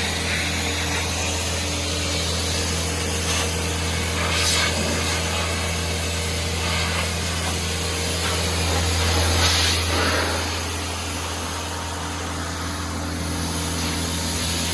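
Compressed-air hose hissing in uneven blasts as it blows dust and hay off a big square baler, over the steady low drone of the running air compressor.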